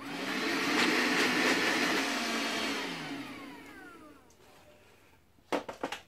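The Hoover FreeMotion 2-in-1's 14.4-volt cordless handheld vacuum unit is switched on and runs for about two and a half seconds. It is then switched off, and its motor spins down with a falling whine. A few short plastic clicks follow near the end as the handheld unit is pushed back onto the stick.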